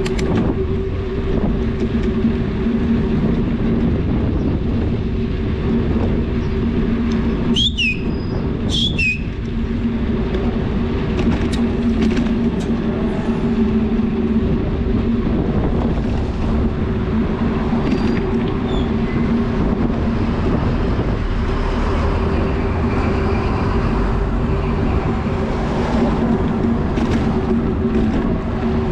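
Steady noise of riding a bicycle: wind on the microphone and tyre rumble with a constant low hum, broken by a couple of short high squeaks about eight and nine seconds in.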